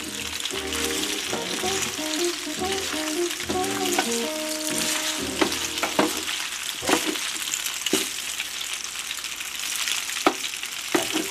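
Penne pasta and turkey sizzling in a hot pan as they are stir-fried and tossed with two wooden spatulas, with a few sharp knocks of the spatulas on the pan in the second half.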